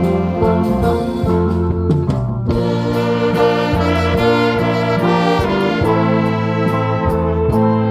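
Live band playing an instrumental passage: a sustained saxophone lead melody over a bass line and steady drum strokes.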